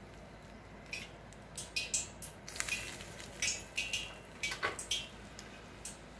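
Steel ladle and spoon clinking and scraping against a glass mixing bowl as hot oil is ladled into wheat flour and stirred in: a string of short, light clicks and scrapes, a dozen or so, irregularly spaced.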